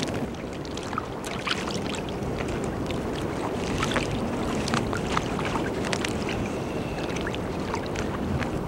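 Choppy seawater lapping and sloshing around people wading waist-deep: a steady wash broken by many small, irregular splashes.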